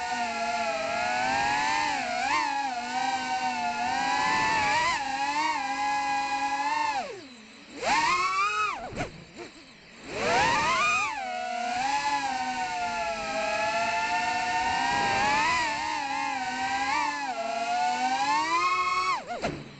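Whine of a 3.5-inch FPV quadcopter's Emax 2004 3000 kV brushless motors and propellers, its pitch rising and falling constantly with the throttle. About seven seconds in the pitch falls and the sound drops away for about three seconds, broken by quick rising sweeps, then it climbs back in; it dips again right at the end.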